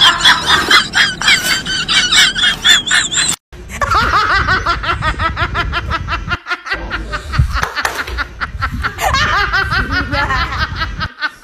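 People laughing hard and cackling. One laugh cuts off abruptly about three and a half seconds in, and another stretch of high, up-and-down laughter follows.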